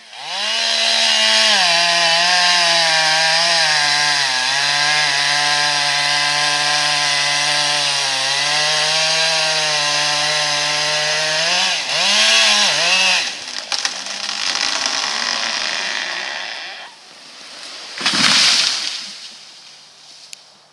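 Two-stroke chainsaw running at high revs while cutting through gum tree wood, its pitch dipping slightly under load, then revved twice and let fall back before fading out. About eighteen seconds in comes a loud, brief rushing burst of noise.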